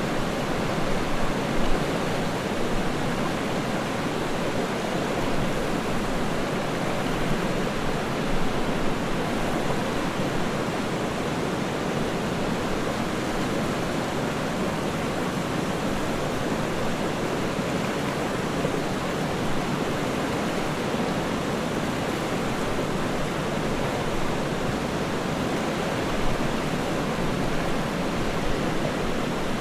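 Waterfall: water falling in a steady rushing hiss, with a few brief louder splashes along the way.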